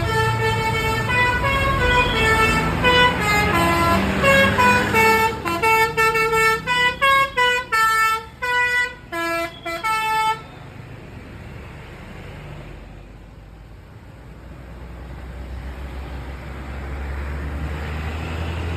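Basuri telolet musical air horn on a tour bus playing a fast multi-note tune, breaking into quick short toots before cutting off about ten seconds in. A low engine rumble follows and grows louder near the end.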